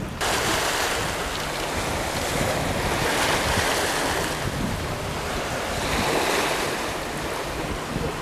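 Steady rushing of wind and choppy sea water, with wind on the microphone, swelling slightly about three seconds in and again around six.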